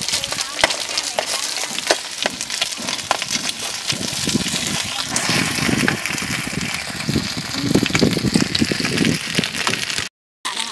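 Chive cakes frying in oil on a large flat griddle, a steady sizzle, with scattered clicks of a metal spatula on the pan. The sound cuts out briefly near the end.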